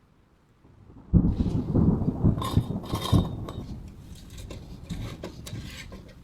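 A hard object being handled: a run of knocks and clatters mixed with rubbing or scraping, starting suddenly about a second in and growing sparser toward the end.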